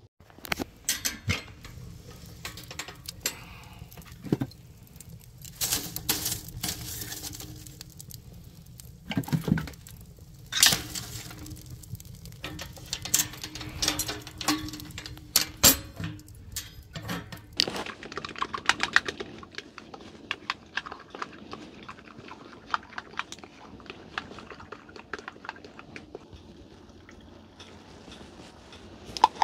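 Handling of a wood stove and metal cookware: a run of sharp knocks, clanks and clicks, then from about two-thirds through a steadier, quieter stretch with scattered light clinks.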